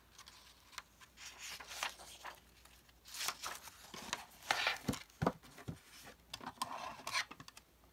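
Pages of an old paperback book being handled and turned by hand, with irregular paper rustling and a few sharp light taps and clicks.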